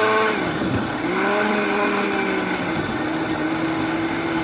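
Countertop blender motor running at full power, puréeing tomatoes and chopped vegetables into sauce. Its pitch sags and recovers as the blades take the load, then settles a little lower about three seconds in.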